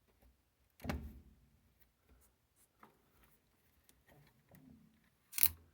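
Handling noises from working on a washer: scattered clicks and light knocks of plastic and metal parts being moved. There is a louder knock about a second in and another near the end.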